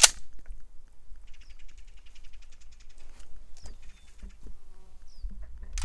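A single loud 12-gauge shotgun blast from a Mossberg 590 Shockwave right at the start, then insects buzzing faintly for a couple of seconds, and another shot just as it ends.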